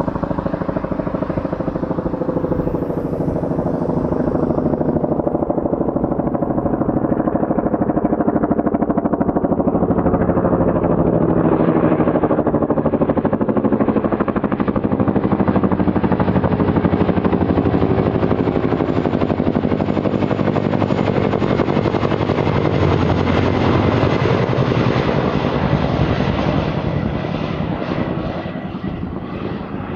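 Boeing CH-47 Chinook tandem-rotor helicopter flying past: the rapid beating of its two rotors with engine whine, swelling as it approaches, staying loud, then fading near the end as it moves away.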